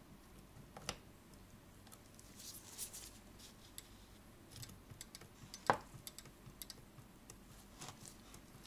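Faint, irregular light clicks and taps from a small tool working at the escapement of a German mantle clock movement while the pallets are being adjusted. The sharpest tap comes just before six seconds in.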